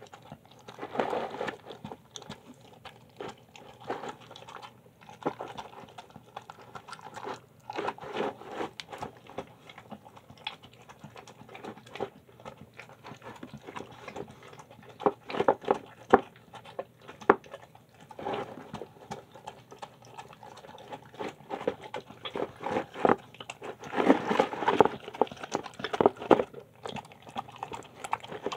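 A dog eating a soft home-cooked mix of chicken, kidney beans, lentils and rice from a bowl close up: irregular bursts of chewing, smacking and licking, heaviest near the end.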